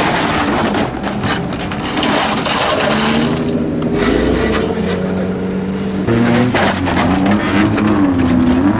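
A loud modified car's engine and exhaust, revved as the car drives off, its pitch rising and falling most in the last few seconds over a rough, crackly exhaust noise.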